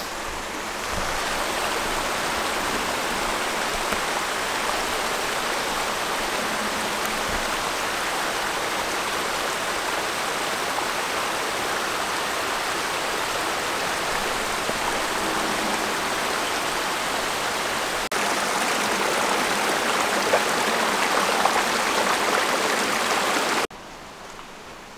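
Creek water rushing steadily over rocks. It gets louder about 18 seconds in and cuts off abruptly a little before the end.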